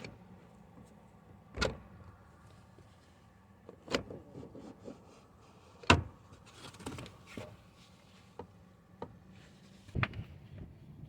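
A few scattered metallic clanks and knocks of hand tools on the car's steering parts, seconds apart, the loudest about six seconds in.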